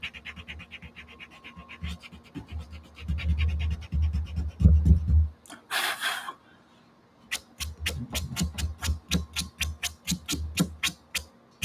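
Pastel scratching on gesso-coated watercolor paper in quick, rhythmic strokes, about five a second in the second half, with low thuds from the board under them. A short hiss comes about halfway through.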